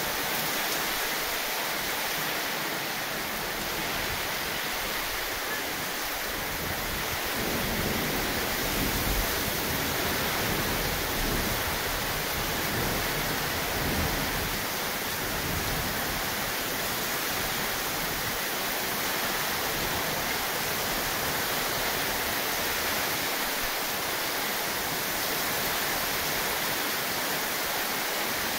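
Heavy rain pouring down steadily: a dense, even hiss of falling drops. A low rumble swells in and out for several seconds in the middle.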